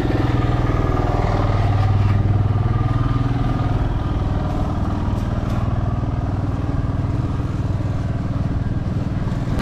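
Wind buffeting the microphone of a camera on a moving touring bicycle, with road rumble underneath. A low hum swells about two seconds in and then eases off.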